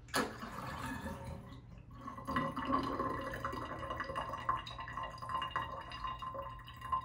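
Water dripping and trickling in a sink drain. It starts suddenly, and a steady high tone comes in about two seconds in.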